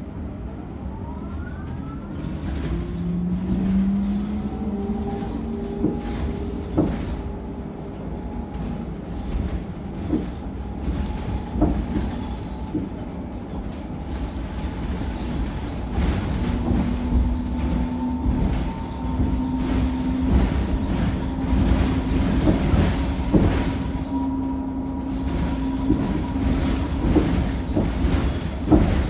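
Whine of a BYD K9RA electric bus's in-wheel hub drive motors, heard from inside the cabin. The whine rises in pitch over the first few seconds as the bus pulls away, then holds fairly steady while it cruises. Under it runs a low road rumble, with scattered short knocks and rattles from the body.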